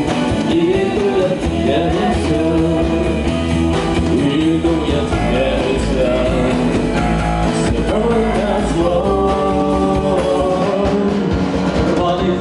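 Rock music with guitar, in a passage with no words between sung lines.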